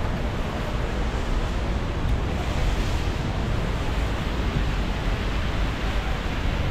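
Wind buffeting the microphone as a steady low rumble, over a constant wash of city street and traffic noise.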